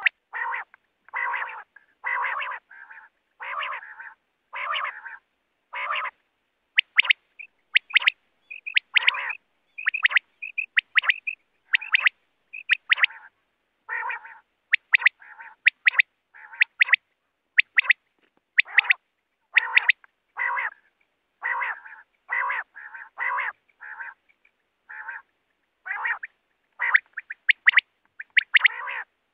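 Quail calling over and over: a quick series of short raspy calls mixed with sharp high chirps, one to three a second, separated by dead-silent gaps.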